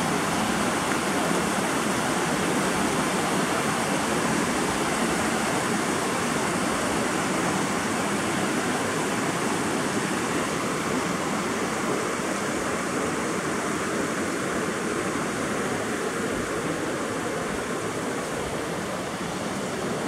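Steady rushing of a mountain river running full and fast over rock ledges and rapids, a little fainter near the end.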